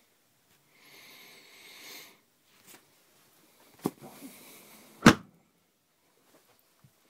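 Rustling handling noise, a sharp click, then one loud knock about five seconds in as a wooden cabinet panel in a camper bangs shut.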